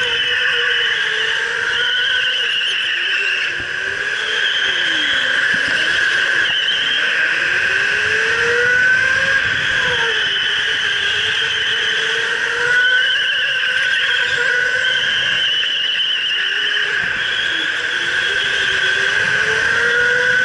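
Electric go-kart motor whining at full racing pace, its pitch rising and falling over and over with speed through the corners.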